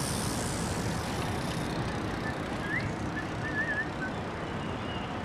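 Steady Midtown street traffic heard from a moving bicycle: a low rumble of traffic and road with hiss, the high hiss dropping away about a second and a half in. A faint, brief warbling chirp sounds near the middle.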